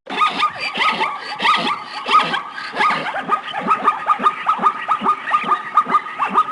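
Animal calls: many short yelps falling in pitch, several a second and overlapping, over a steady high tone.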